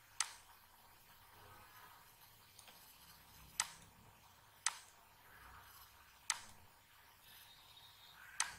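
Computer mouse clicking five times at uneven intervals, each a single sharp click, over faint background hiss.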